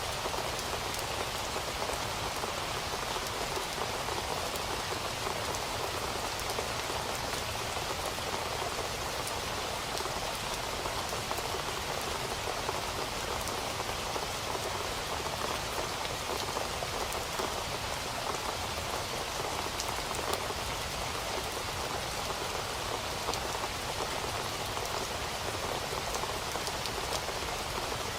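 Steady rain falling, an even hiss dotted with the small ticks of individual drops, holding constant throughout.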